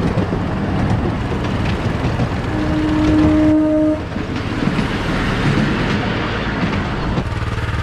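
Miniature railway train running along the track. About two and a half seconds in, the locomotive gives one steady toot lasting about a second and a half.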